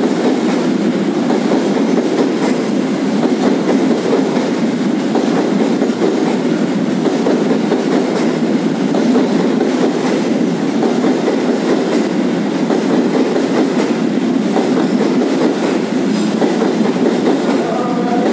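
Wagons of a container freight train rolling past on the rails: a steady, continuous rumble of steel wheels on track.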